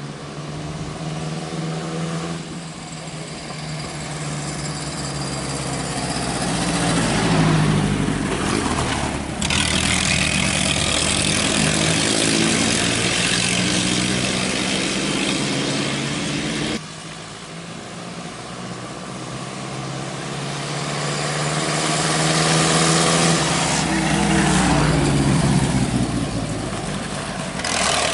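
Engines of two vintage Fiat race cars, a 1924 Fiat 501 and a 1928 Fiat 509 SM, running as the cars drive past. The engine sound grows louder as they approach and falls in pitch as they pass, twice. It jumps abruptly twice.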